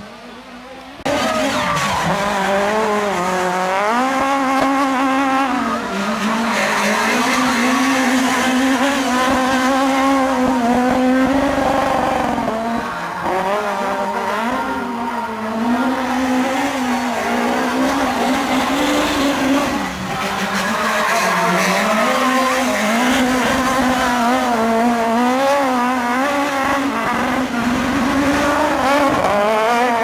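Peugeot 306 Maxi rally car's 2-litre four-cylinder engine driven hard. It revs up and falls back again and again through gear changes and corners, starting about a second in after a short quieter moment.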